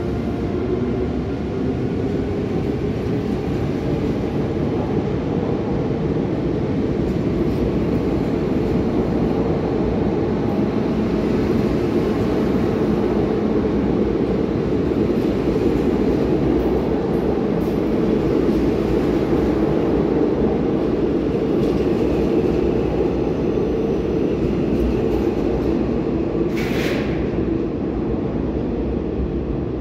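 A Transilien train of VB2N double-deck coaches, hauled by a BB 27300 electric locomotive, rolling out of the station at low speed: a steady rumble of wheels on rails. A high whine fades in the first seconds, and there is a brief high-pitched screech near the end.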